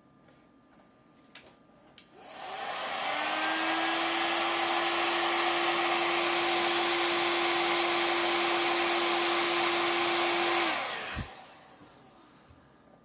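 A small electric motor-driven blower or pump, like a hair dryer or vacuum, is switched on with a click. It spins up with a rising hum, runs steadily with a loud airy rush for about eight seconds, then shuts off and winds down.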